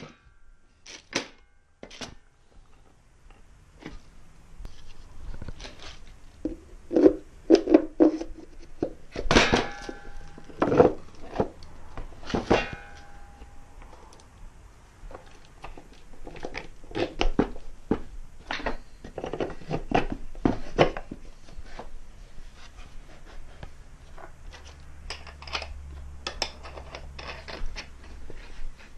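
Irregular knocks, clunks and scrapes of a wooden stave snare drum shell and its wooden milling jig being handled and adjusted, with a couple of clinks that ring briefly.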